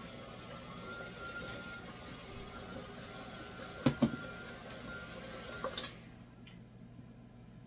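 Electric stand mixer running steadily, mixing a wet batter of butter, sugar and shredded zucchini, with a couple of knocks about four seconds in. It is switched off with a click about six seconds in.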